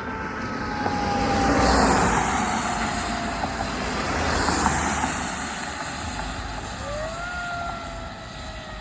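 Fire truck going by on an emergency response: a slowly falling siren tone as the siren winds down, over two swells of rushing engine and road noise about two seconds and four and a half seconds in, then a siren tone sweeping up again near the end.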